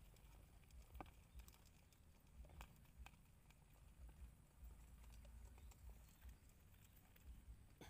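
Near silence, with a faint low rumble and a few faint scattered clicks.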